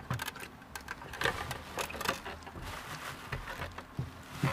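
Handling noise from a MINI Cooper S in-tank fuel pump module being worked up out of the tank: irregular small plastic clicks and knocks mixed with the crinkling of plastic drop sheeting.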